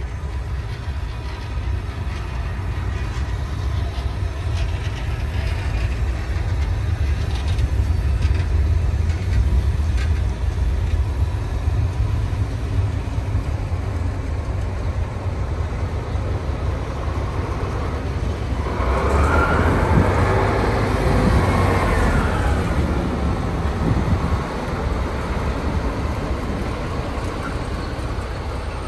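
A slow work train of yellow track machines rolls past, hauled by a class 218 diesel-hydraulic locomotive, with a steady low rumble of engines and wheels on the rails. From about two-thirds of the way in, the locomotive passes close by and the sound grows louder, with a high whine or wheel squeal over it, then eases off.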